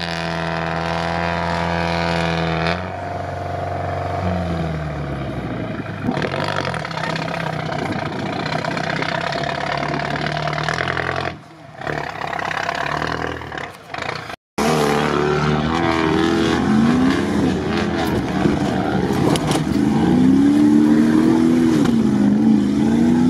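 Off-road truck engine running hard under load as it drives through mud, holding a steady note that drops in pitch about three seconds in. After a cut about two-thirds of the way through, an SUV's engine is heard from inside its cabin, revving up and down repeatedly as it drives through the mud.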